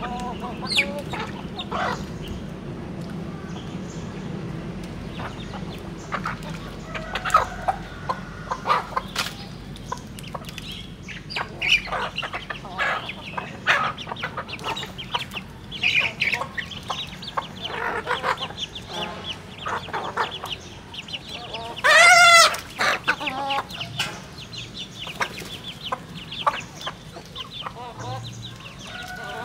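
Chickens clucking as they feed, mixed with many short, sharp clicks. One loud squawk stands out about two-thirds of the way through.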